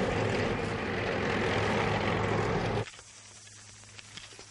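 Tracked military vehicle running, a steady engine drone mixed with the noise of its tracks. The sound cuts off abruptly about three seconds in, leaving faint crackle and clicks.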